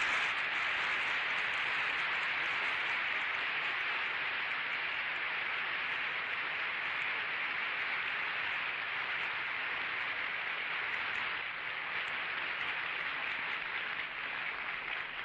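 Audience applause in a large assembly hall: a steady, even clapping that holds through the pause and begins to die away near the end.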